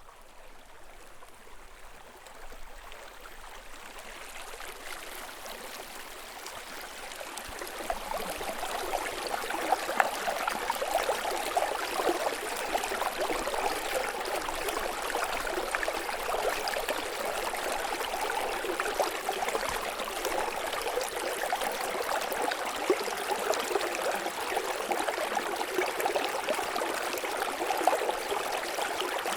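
Small snowmelt stream babbling and trickling over rocks. It grows louder over the first eight seconds or so, then runs on steadily with many small splashes and gurgles.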